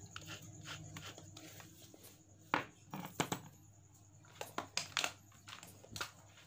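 Quiet room tone broken by scattered short clicks and knocks, the sharpest about two and a half and three seconds in and a quick cluster near the end.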